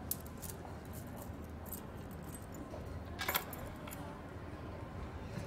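Light metallic clinks and jingles of a metal chain bracelet being unfastened and handled, with a louder jingling cluster a little over three seconds in.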